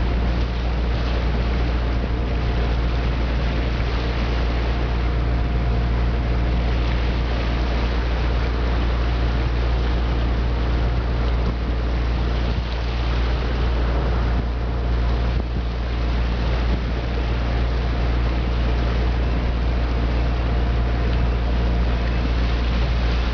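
A motorboat's engine running steadily under way: a constant low hum with a faint steady tone above it, mixed with the rush of water and wind.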